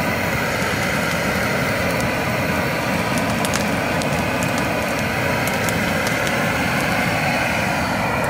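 Propane weed torch burning with a steady, even hiss of the flame, with a few faint crackles in the middle.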